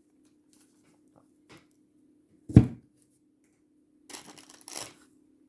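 Fireworks being handled out of a selection box: one solid thump about two and a half seconds in as an item is set down, then rustling and crinkling of packaging near the end, over a faint steady hum.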